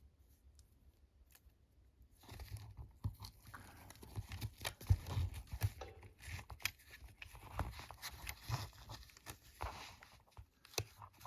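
Small metal pry-bar tension tools being slid into the pockets of a fabric tool wallet: rustling and scraping with scattered light clicks, starting about two seconds in and dying away near the end.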